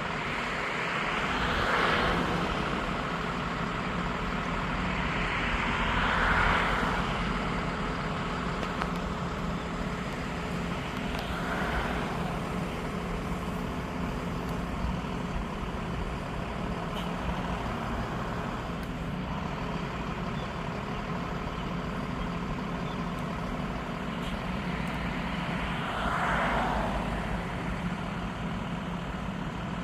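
Steady low hum of an idling engine, with a vehicle going by about four times, each pass swelling up and fading over a second or two.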